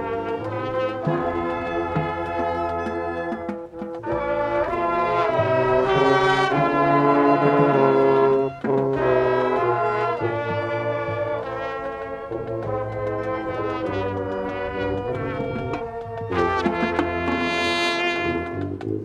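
Marching band brass (trumpets and low brass) playing held chords over a steady bass line, with a brief break about eight and a half seconds in.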